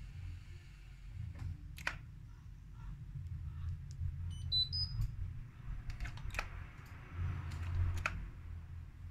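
Hotpoint Ariston front-loading washing machine tumbling a deliberately unbalanced load at low drum speed: a steady low motor hum and rumble with three sharp knocks from the load and drum. A brief run of high chirps, rising in pitch, comes about four and a half seconds in.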